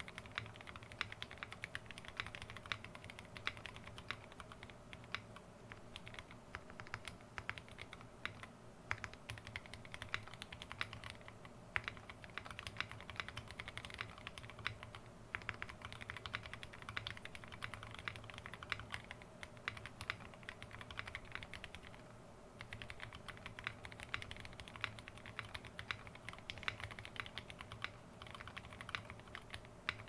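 Typing on a mechanical keyboard with Gateron milky switches in a Tada68 aluminium case, keys clacking in fast continuous runs broken by a few short pauses.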